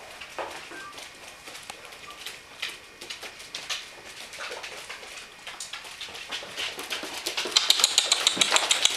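Alaskan Malamute puppies' claws clicking and pattering on a hard wooden floor as they run and scamper. The scattered clicks become a rapid, louder train near the end.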